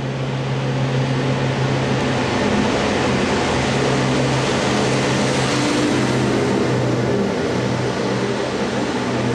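Matisa rail track maintenance machine passing along the track, its diesel engine running with a steady hum over the noise of the passing machine. It gets louder in the first second as it draws close, then stays loud.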